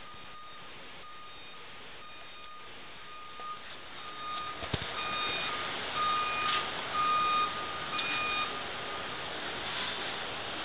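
A truck's warning beeper sounding over and over, a single steady tone about once a second. A rushing noise grows louder beneath it from about a third of the way in.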